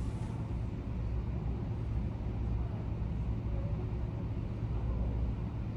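Steady low mechanical hum and rumble that holds an even level throughout.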